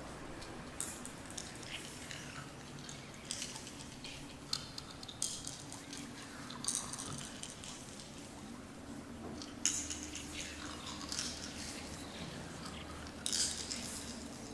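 Small polished crystal stones (malachite, apatite and rose quartz) jiggled together in the hands, giving irregular bursts of clicking and clinking several times over. A steady low background ambience runs underneath.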